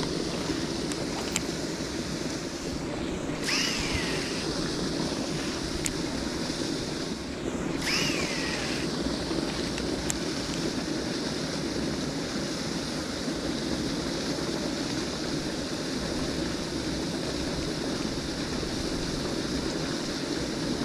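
Steady rush of water with wind on the microphone. A short high chirp that rises and falls comes twice in the first half.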